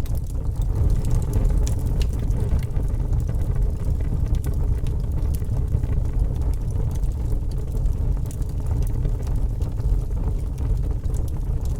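Fire burning with a steady low rumble and many scattered sharp crackles and pops.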